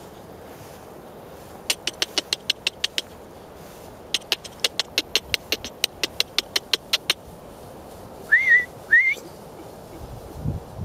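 Two quick runs of tongue clicks, about six a second, followed by two short rising whistles: a person clicking and whistling to call horses.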